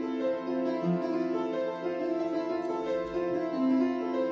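Piano playing a slow passage: held chords with single notes changing over them every second or two. The listeners think it sounds weird and a little sharp.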